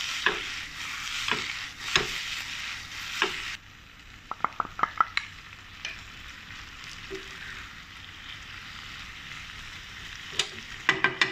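Teriyaki chicken and vegetables sizzling in a nonstick wok as a wooden spatula stirs and tosses them, with sharp clicks of the spatula against the pan. The sizzle drops suddenly to a quieter hiss about three and a half seconds in, followed by a quick run of clicks.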